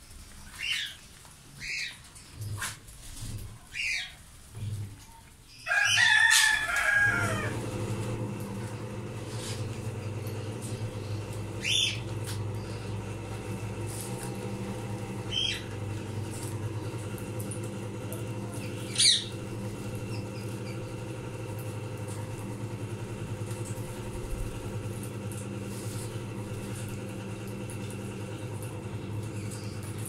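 Indian ringneck parakeets giving short high calls about once a second, then a loud burst of wing flapping and squawking about six seconds in. After that a steady low hum sets in and runs under a few sharp single calls.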